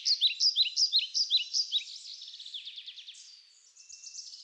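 Songbirds chirping in quick, high, downward-sweeping notes, several to a second, loudest in the first two seconds and then thinning to softer chirps and trills that fade near the end.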